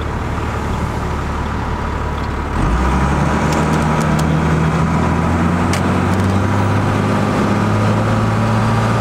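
12-valve Cummins diesel accelerating, heard from inside the cab, with its rebuilt HX35 turbo whistling as it spools. About two and a half seconds in the engine gets louder, and its pitch then climbs steadily. A second, off-key whistle comes from wind at the mirror.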